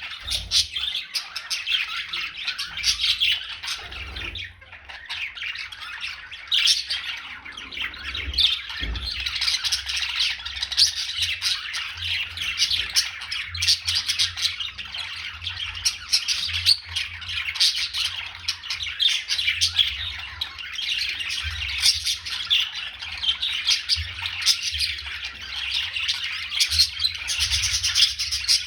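Many birds chirping and squawking together in a dense, unbroken chatter of overlapping calls.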